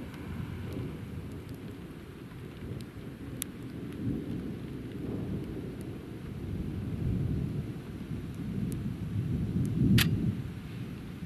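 Thunder rumbling after a lightning flash, a long low roll that swells and fades and builds to its loudest near the end with a sharp crack.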